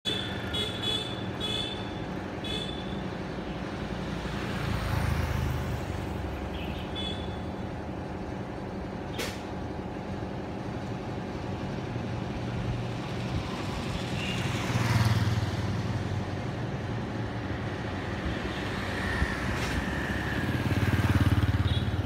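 Street traffic: motorbikes and scooters passing, each swelling and fading, three times in all, over a steady engine hum. A few short high chirps come near the start.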